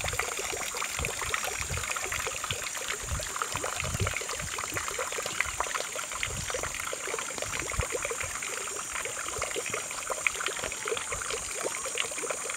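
Outdoor pasture ambience: a steady high-pitched buzz over a dense crackling, trickling noise, with irregular low rumbles of wind on the microphone.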